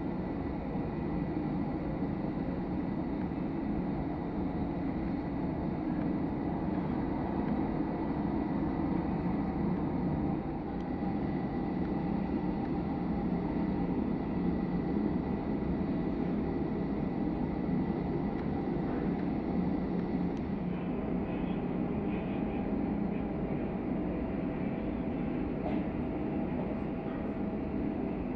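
Turbofan engines of taxiing jet airliners running at idle thrust: a steady low noise with a thin, steady high whine.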